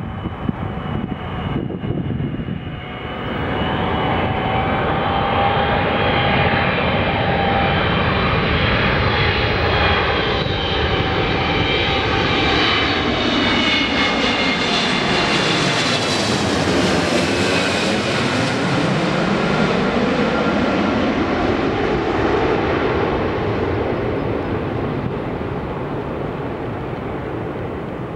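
Boeing 777-200ER's twin Pratt & Whitney PW4090 turbofans at approach power as the airliner flies low directly overhead on final approach. The engine noise swells, with high whining tones that slide down in pitch as it passes a little past halfway through, then eases off as it heads away.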